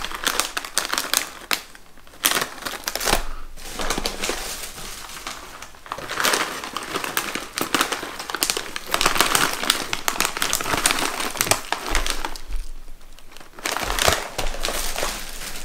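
Plastic snack bags crinkling as they are picked up, turned over and handled, in irregular spells with a few short pauses.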